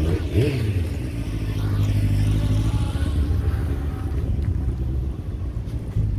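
Engine of a small open vehicle running steadily while under way, with a short rise and fall in pitch just after the start.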